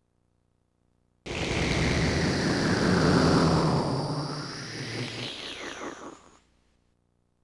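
A swirling whoosh sound effect that starts suddenly about a second in: a dense rushing noise with pitch sweeping down and back up, fading out about five seconds later.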